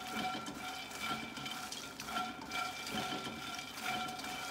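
Makhana (puffed lotus seeds) being stirred and turned with a slotted spatula in a nonstick wok as they roast in a little ghee, a soft irregular rustling and scraping. A thin whining tone fades in and out alongside.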